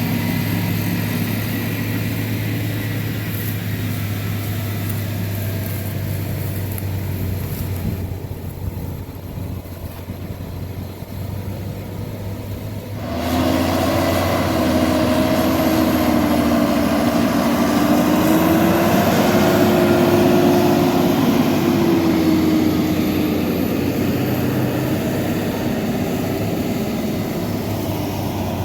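John Deere 7430 Premium tractor's diesel engine running under load while pulling a slurry tanker with injectors. It drops quieter for a few seconds, then comes back sharply louder about halfway through, its pitch rising and then falling again.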